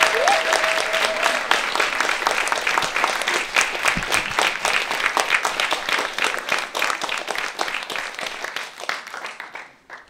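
Audience applauding after a spoken poem performance, the clapping thinning out and stopping near the end.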